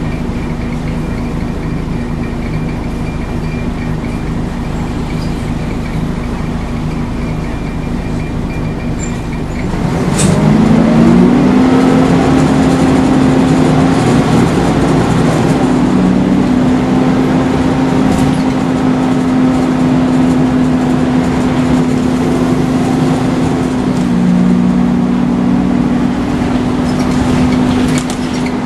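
Volvo Wright Renown single-deck bus running with a steady low hum; about ten seconds in, a low tone rises and settles higher as the sound grows louder, then holds steady.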